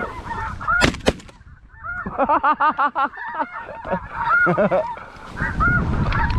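Two shotgun shots about a third of a second apart, a second in. Rapid honking goose calls run around them, in a fast run of calls soon after and more near the end.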